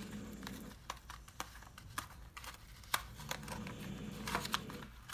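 Scattered light taps and clicks of paper and sticker pieces being handled and pressed onto a paper box on a tabletop, the sharpest click about three seconds in. A faint low drone comes and goes underneath twice.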